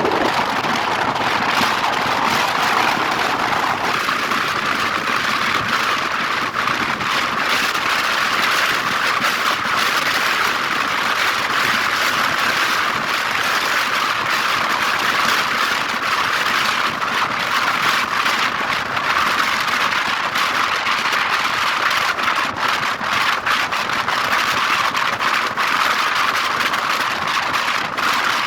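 Steady rush of wind and road noise from a moving vehicle.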